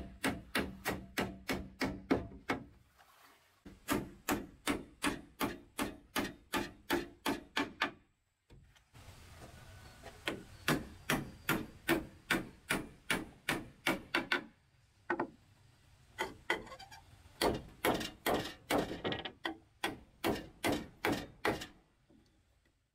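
Hammer nailing wooden slats to a cabinet frame: quick runs of sharp blows, about three or four a second, with short breaks between the runs.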